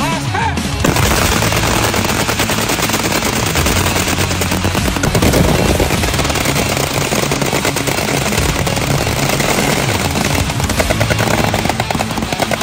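Rifles firing rapidly and continuously, shot upon shot with no pauses, starting about a second in.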